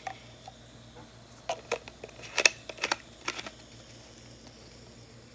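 Handling noise: a cluster of short, sharp clicks and light taps from about one and a half seconds in, loudest near two and a half seconds, as white plastic measuring spoons and the apple cider vinegar bottle are handled.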